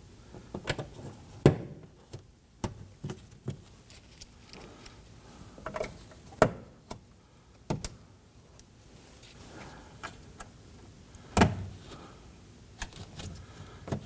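Plastic door-panel retainer clips being handled and pushed into the panel, a scattered series of sharp plastic clicks and snaps, the loudest about a second and a half in and again near the end.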